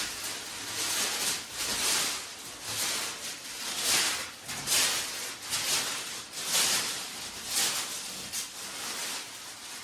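Masking tape peeling off a freshly painted wooden boat hull and wax-paper masking crinkling as it is pulled away. Irregular rasping swells come about once a second.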